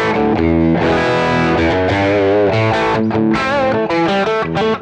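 Electric guitar played through a Kemper Profiler with a screamer overdrive stomp morphed in, giving a lightly driven tone: a run of notes with string bends and vibrato in the second half.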